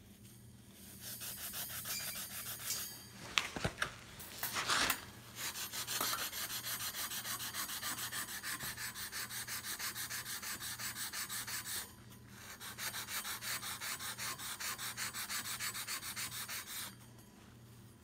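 Steel wool scrubbing the wire grille of a 1960s Torcan box fan in rapid back-and-forth strokes, about four a second. There are a few sharper scrapes and clinks between three and five seconds in, and a brief pause about twelve seconds in.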